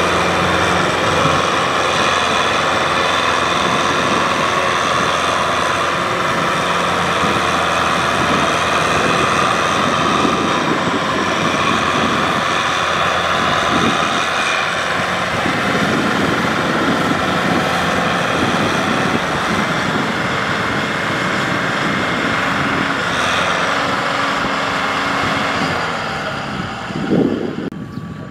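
Farm tractor's diesel engine running hard under load, hauling a trailer of rice sacks through deep mud. The sound is steady and loud, with a brief rising swell near the end before it drops away.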